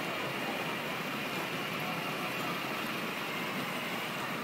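Child's battery-powered ride-on toy car driving over tiled paving: a steady noise from its motor and plastic wheels with no clear pitch.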